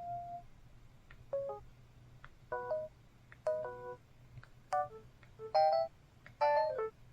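LG LB3300 Cyon Rhapsody phone playing a series of short electronic system tones, about six of them roughly a second apart. Each tone is a brief cluster of notes, most with a sharp click just before it, and they grow louder toward the end.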